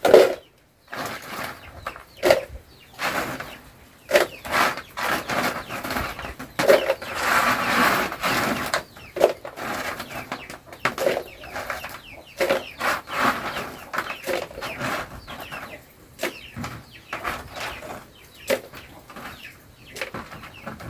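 Dried salted fish rustling and clicking as handfuls are scooped from a basin and dropped into a plastic container: a run of short dry crackles and taps, with a longer rustle about seven seconds in.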